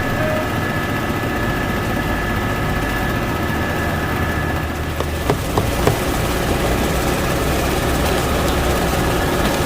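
Machinery running with a steady drone and a few steady tones, with a few short knocks about five to six seconds in.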